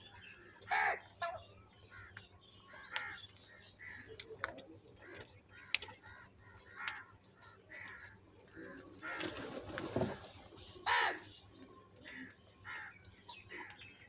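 A flock of house crows cawing: short harsh calls scattered through, the loudest about a second in and again near the end, with a brief rushing noise a little after the middle.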